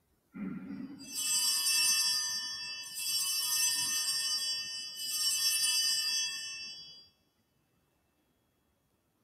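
Altar bells (a set of small Sanctus bells) shaken in three rings of about two seconds each, with many high ringing tones that stop sharply after the third ring. The bells mark the elevation of the chalice at the consecration.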